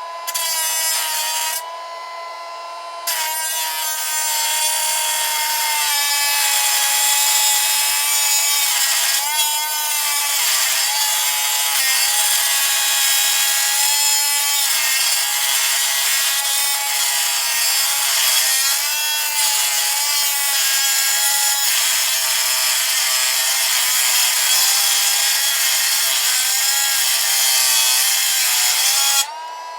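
A power tool's cut-off wheel grinding through a Master Lock padlock's steel shackle, a loud whine over a grinding hiss, the whine dropping in pitch under load. Just before three seconds in, the wheel briefly spins free, then bites again. Near the end it lifts off and the whine climbs back as it runs free.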